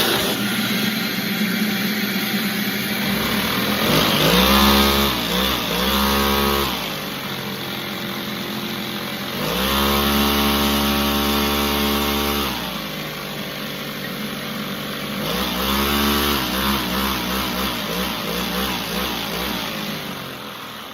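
Small engine running, its speed rising, holding and dropping back three times like revving.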